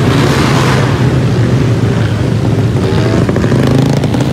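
Many motor scooters and small motorbikes riding together in a pack, their engines and exhausts blending into one loud, steady drone, heard from among the moving bikes.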